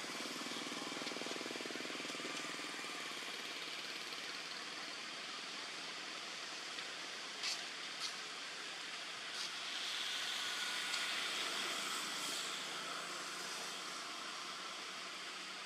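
Steady outdoor background noise with a faint distant engine hum, and two short clicks about halfway through.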